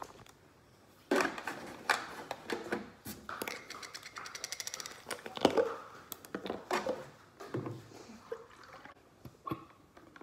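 Knocks and clatter of a plastic gallon milk jug and a plastic baby bottle handled on a kitchen counter while the bottle is filled with milk, with a quick run of even ticks about midway and a sharp knock just after.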